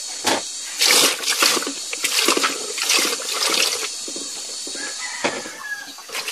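Hands working cut pineapple chunks in a bowl: irregular wet sloshing and squishing noises, busiest through the middle.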